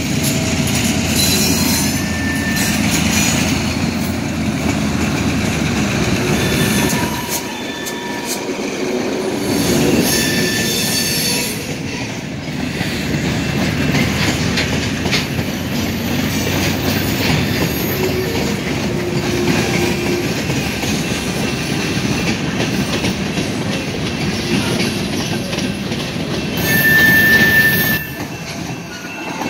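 Freight train rolling slowly past: the rumble of a diesel locomotive in the first few seconds, then the steady clatter and rumble of freight car wheels on the rails, with short wheel squeals now and then and a louder squeal near the end.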